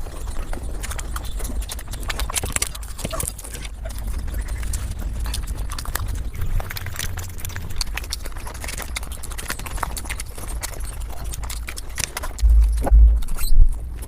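Mukbang eating sounds played back sped up: rapid, dense chewing and smacking clicks over a low rumble. A loud low bump comes near the end.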